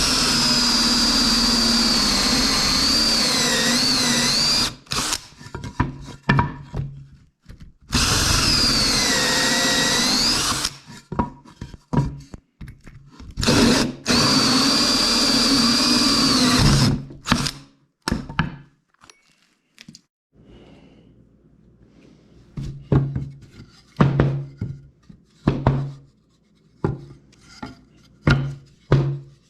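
Power drill running in three long bursts of several seconds each, its whine dipping in pitch as it bears on the wood. In the second half, a series of separate sharp knocks of wood and tools.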